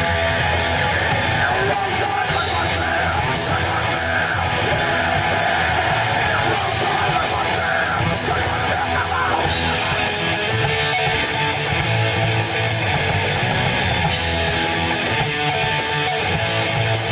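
Live heavy rock band playing loud, with distorted electric guitar and yelled vocals.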